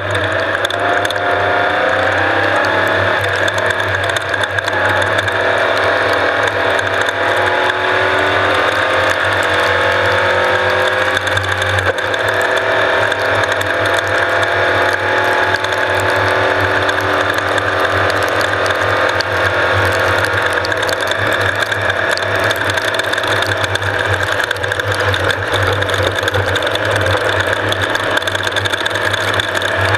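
Off-road race vehicle running hard, its engine and drivetrain whine slowly rising and falling in pitch over a steady low drone, with constant fine mechanical clatter.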